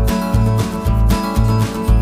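Background music: guitar-led, country-style music with a steady beat.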